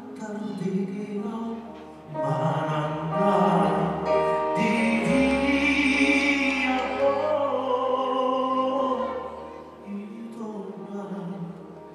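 Live music from a Batak gondang hasapi ensemble playing with a string section: sustained melodic lines that build about two seconds in, are loudest around the middle, and ease off near the end.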